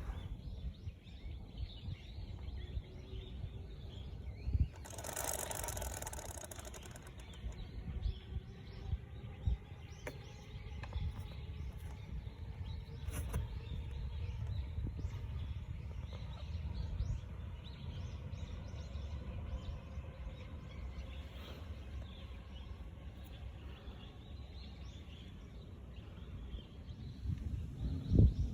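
Outdoor background noise with a steady low rumble and faint bird chirps, broken by scattered clicks and knocks. A short hiss lasts about a second and a half, starting about five seconds in.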